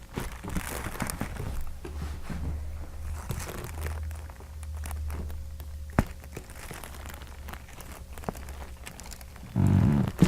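Rustling and shifting of a patient being handled on a chiropractic table, with a low rumble in the first six seconds and a single sharp crack about six seconds in. A short, loud, low-pitched sound comes near the end.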